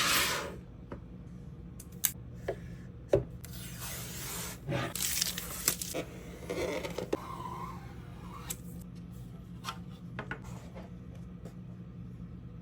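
Packaging being handled and opened: rubbing and scraping, with scattered sharp clicks and knocks, the busiest stretch a few seconds in.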